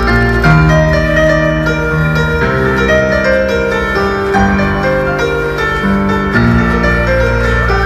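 Grand piano playing a slow instrumental passage: held chords over a deep sustained bass, with the melody moving note by note.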